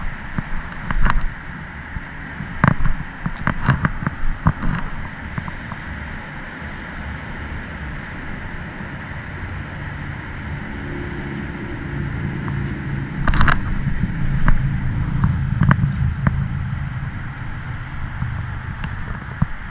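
Handling and cranking of a spinning rod and reel: scattered light clicks in the first few seconds over a steady outdoor hiss with wind on the microphone. From about ten seconds in, a low hum swells and then fades, with a sharp knock about thirteen seconds in.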